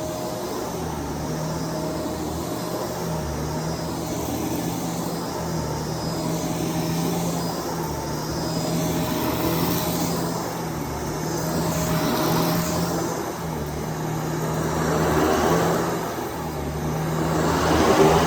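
Shark DuoClean PowerFins vacuum cleaner running with a steady motor hum, its rush of noise swelling and easing every few seconds, loudest near the end.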